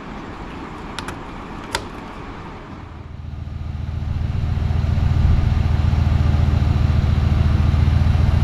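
A few sharp clicks in the first two seconds as plastic trim clips are pressed in. Then the Nissan Patrol Y62's 5.6-litre V8 is heard idling, a steady low rumble that comes up about three seconds in and holds.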